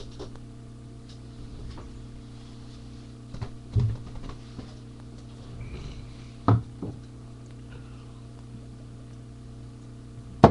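Steady electrical hum with a few short, low thumps, two of them louder, about four and six and a half seconds in.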